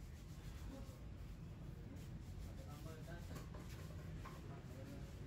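Faint background ambience: a low steady rumble with scattered faint short chirps.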